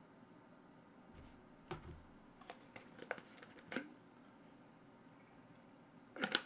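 Faint, scattered clicks and small rustles from someone at a computer desk, with a quick cluster of louder clicks near the end, over quiet room hiss.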